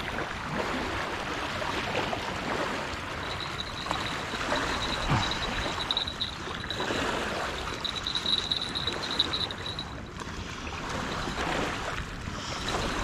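Small waves washing against a muddy riverbank, in uneven surges.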